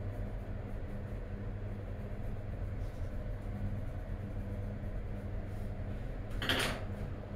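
Steady low background hum with faint coloured-pencil strokes scratching on paper. About six seconds in, a short rustle as the drawing paper is shifted on the table.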